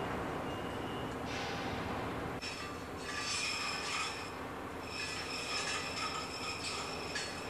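Metal scraping and squealing against metal in two stretches, starting a couple of seconds in, over a steady machinery drone.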